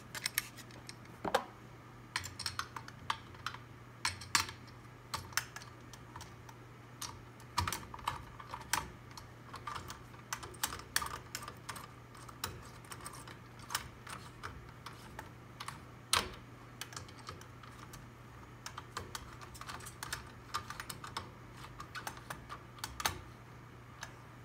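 Irregular clicks and taps of a screwdriver turning the screws that fasten a blade iron to a Hampton Bay Middleton ceiling fan motor, with the metal bracket knocking against the motor housing. A steady low hum sits underneath.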